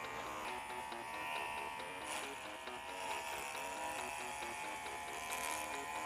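Corded electric dog clippers running steadily with an even whine, cutting through a long-coat Chihuahua's fur.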